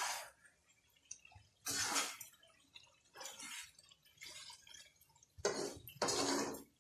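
A fork stirring thick chicken curry gravy in a nonstick wok, heard as several short wet stirring bursts with quiet gaps between them.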